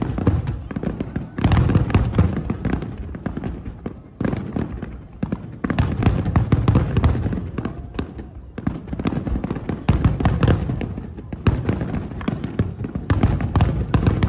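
Aerial firework shells bursting in rapid succession: deep booms mixed with sharp cracks and crackling. The volleys come in waves that swell every few seconds.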